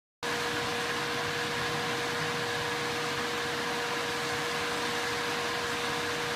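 Swimming-pool filtration pump with its new electric motor running steadily after priming: an even hum with a steady mid-pitched tone over a rush of water and fan noise. It cuts in just after the start and stops abruptly near the end.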